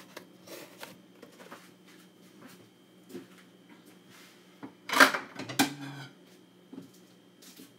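Kitchen handling noise: scattered soft taps, then a short rustle and a few clicks about five seconds in, over a faint steady hum.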